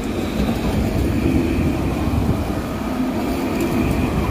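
Steady low rumble of street noise in wind and heavy rain, with rain hiss on top.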